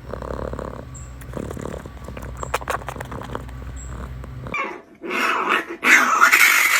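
Raccoon growling, with scattered clicks and a low hum underneath; about two-thirds of the way in the sound changes abruptly to louder, noisier stretches.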